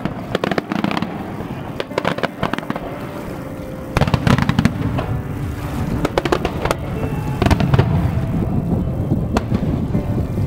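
Fireworks display: aerial shells bursting in a rapid series of sharp bangs and crackles, growing louder and denser about four seconds in.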